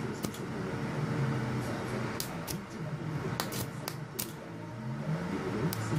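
Red Ant IGBT welding inverter running with no load, a steady whir with a thin constant tone and low hum, with a handful of sharp, irregular clicks.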